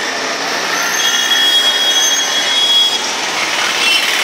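Busy street traffic: a steady mix of auto-rickshaw and other vehicle engines, with a high, thin steady tone sounding from about one second in to about three seconds in.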